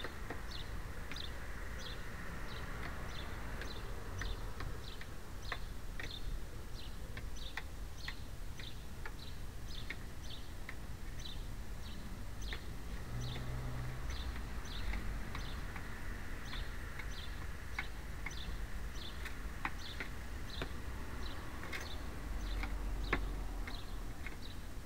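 A sparrow chirping over and over in short, high chirps, about two or three a second, over a low steady rumble of background noise.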